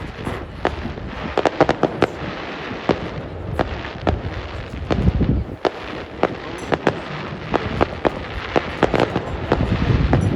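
Fireworks display going off: a dense run of sharp bangs and crackles, with deep booms about five seconds in and again near the end.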